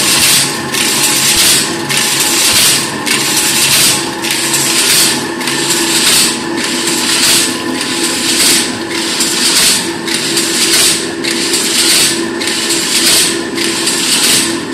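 Stainless steel wire mesh weaving loom running: a loud, even clatter and hiss that swells with each stroke, about three times every two seconds, over a steady mechanical hum.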